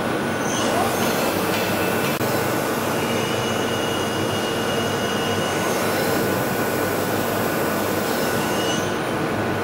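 Union BFT 102 CNC horizontal borer's spindle drive running at speed: a steady mechanical running sound with a faint whine and thin high tones that come and go.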